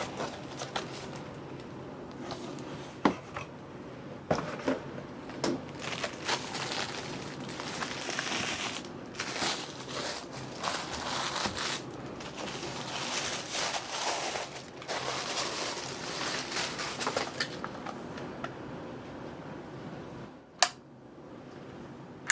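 Cardboard and wrapping of a keyboard box being handled and opened: crinkling and rustling of the packing, with scattered knocks and clicks, and a sharp click near the end.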